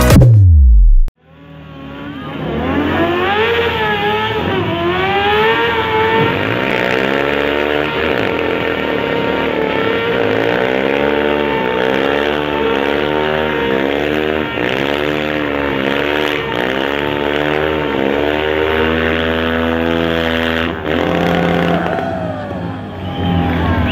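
Quad bike engine revving in repeated rising and falling surges, roughly one a second, during a tyre-smoking burnout. Before it, at the very start, music slides down in pitch and cuts off.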